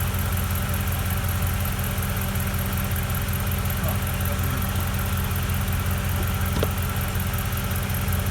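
Pickup truck engine idling steadily while its A/C system is being topped up with refrigerant, with one brief click late on.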